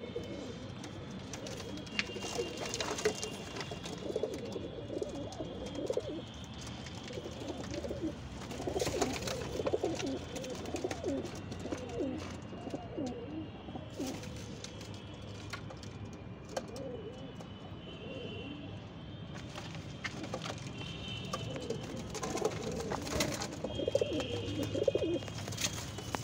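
Domestic pigeons cooing in a loft: many low, wavering coos overlapping in clusters, loudest around 9–10 s and again near the end, with scattered sharp clicks between them.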